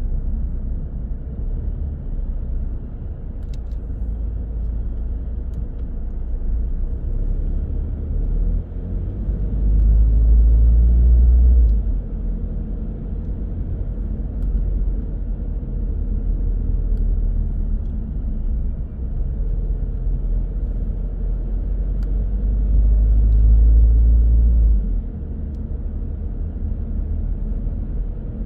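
Car driving on the road: a steady low rumble of tyres and engine, swelling louder twice for about two seconds each.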